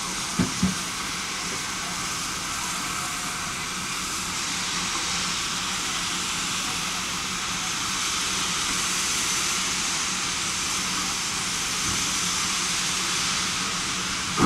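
Steady hiss of escaping steam from the ČSD 486.0 'Zelený Anton' and 498.0 'Albatros' steam locomotives, growing slightly louder midway, with two short knocks about half a second in.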